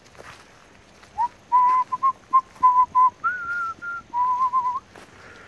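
A person whistling a short run of notes, starting about a second in: several short notes at one pitch, a higher held note, then a wavering note.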